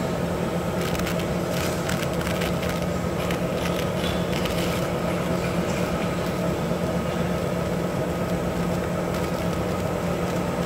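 Automatic kitchen towel paper making machine line running: a steady mechanical hum and whir, with scattered light crackles in the first half.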